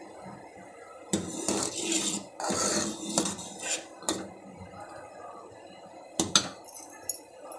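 Metal ladle stirring milky sabudana kheer in a steel pot, scraping and clinking against the pot's sides and bottom in irregular strokes, with one sharp clink about six seconds in.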